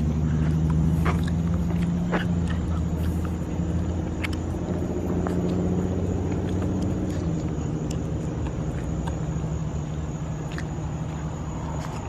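Car engine and road noise heard from inside the cabin, a steady low hum that eases off about seven seconds in.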